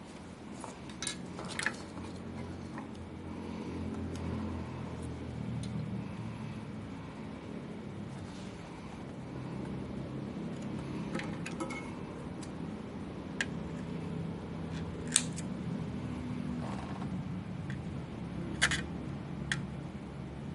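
Scattered sharp clicks and clinks of small hard parts and tools being handled during graphics-card disassembly, over a low steady hum.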